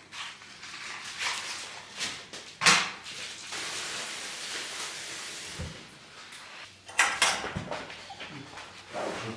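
Kitchen handling sounds: several sharp knocks and clatters of dishes and utensils, with a few seconds of steady hiss in the middle.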